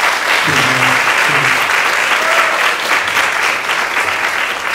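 Audience applauding, a dense steady clapping with a voice heard briefly about a second in.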